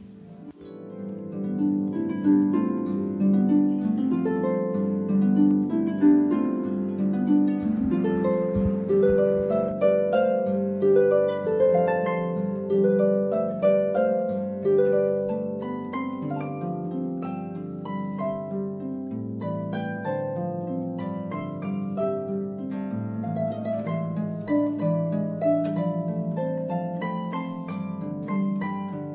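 Background music: a quick run of plucked-string notes over lower held notes.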